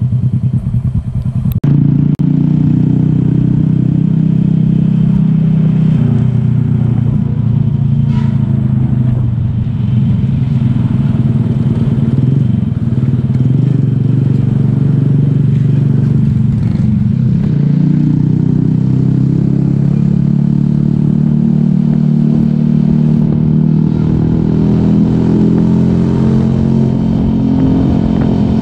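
A small motorcycle's engine running under way, recorded on the bike itself, its pitch rising and falling as the throttle changes. There is an abrupt jump a little under two seconds in.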